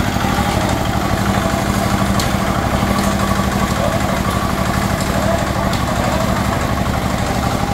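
Small engine of a portable concrete mixer running steadily at a constant speed, with voices of workers in the background.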